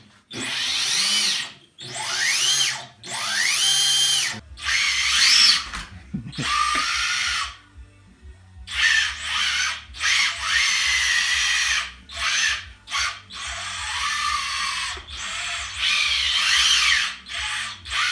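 A radio-controlled robot's electric drive motors whining in repeated short bursts as it drives, each burst rising and falling in pitch, with brief pauses between them.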